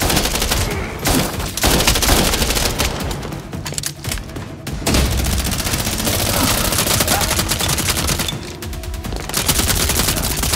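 Rapid bursts of automatic gunfire sound effects for Nerf blasters being fired, with short pauses between bursts.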